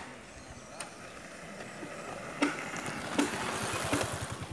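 Shovels scraping and knocking against the metal bed of a pickup truck as loose red earth is shovelled off the back. There are four sharp clanks, with rasping scrapes of soil in between.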